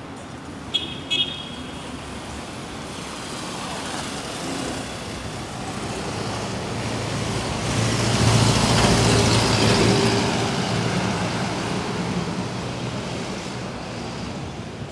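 Street traffic: a motor vehicle approaches and passes close by, its engine and tyre noise swelling to a peak about eight to ten seconds in and then fading. Two short high beeps sound about a second in.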